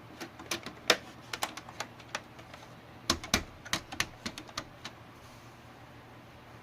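Computer case cover being pressed shut, its tabs clicking and snapping into place in a run of irregular sharp clicks that stop about five seconds in.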